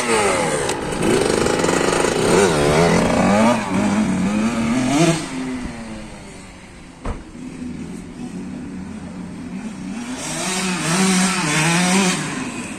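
KTM 65 SX single-cylinder two-stroke engine, its top end freshly rebuilt, revving up and down in throttle blips, settling to a quieter idle about halfway through, then revving again near the end. A single sharp knock sounds about seven seconds in.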